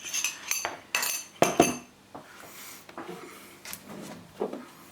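A spoon clinking and scraping against a container as the last of some pesto is added to a soup maker's jug: a quick run of sharp clinks in the first second and a half, then a few lighter knocks.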